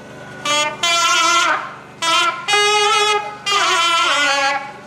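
Nadaswaram playing an ornamented melody in several loud phrases with short breaks between them, its pitch bending and wavering within each phrase.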